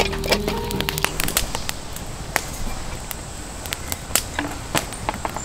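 Wood campfire crackling, with irregular sharp snaps. Music ends about a second in.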